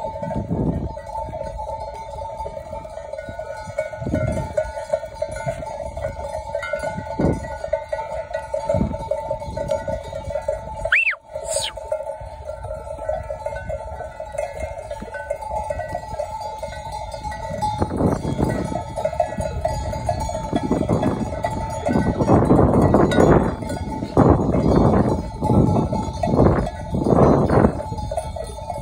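Bells on a walking flock of sheep jangling continuously, a steady clinking that never stops. In the second half it is overlaid by louder bursts of low rustling and thudding from the moving flock.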